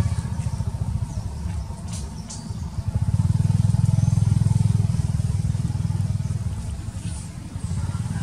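An engine running with a low, pulsing rumble that grows louder about three seconds in and eases off near the end.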